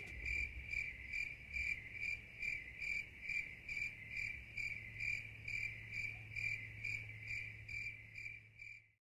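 A cricket chirping in an even pulse, nearly three high chirps a second, over a faint low hum; it stops shortly before the end.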